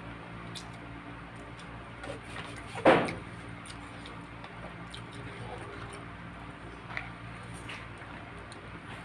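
Wet squishing and tearing of a roast chicken being pulled apart by hand while eating, with small clicks and smacks, over a steady low hum. One sharp, louder smack comes about three seconds in.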